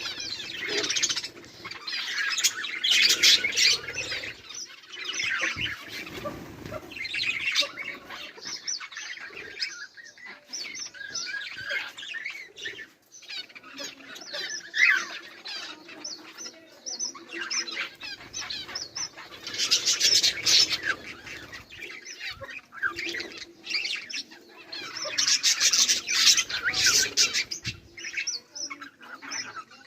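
A group of budgerigars chattering and chirping together, busy overlapping warbles and chirps in louder bursts with quieter spells between.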